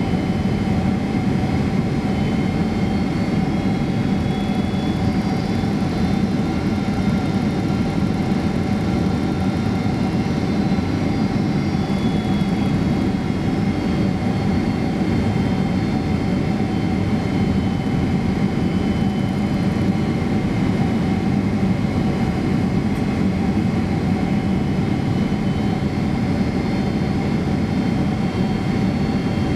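Steady cabin noise in the forward cabin of a Boeing 767-300 airliner descending on approach: a low, even rumble of engines and airflow with faint steady whining tones over it.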